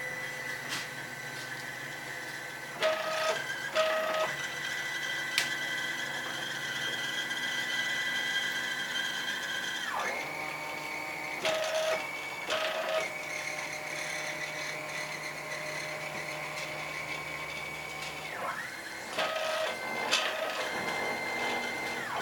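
CNC router running, its drive motors whining at a steady pitch that jumps to a new pitch a few times as the moves change. Short louder motor bursts come in between.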